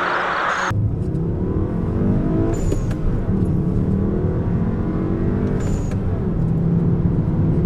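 Exhaust of an MK6 Volkswagen Jetta GLI's turbocharged 2.0-litre four-cylinder under acceleration, its pitch climbing and falling back several times as it goes through the gears, with a short high whistle twice at the shifts. A brief burst of a hissier engine recording comes before a cut just under a second in.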